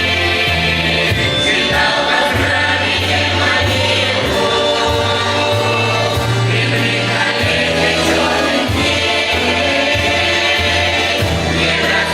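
Russian folk ensemble choir singing, with a low line that changes note about once a second and a steady beat.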